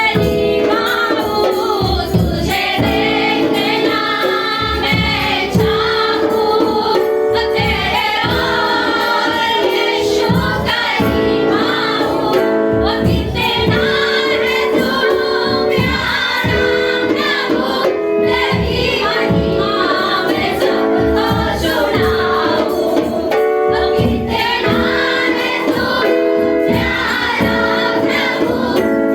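Congregational worship song: women's voices singing together in unison over a steady rhythmic accompaniment with percussion.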